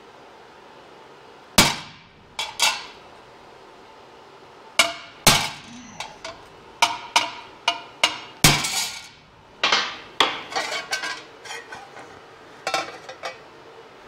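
Hammer blows on a sheet-metal patch panel: a string of sharp, irregular metallic strikes, each ringing briefly, starting about a second and a half in, as the ends of the rolled beads are capped.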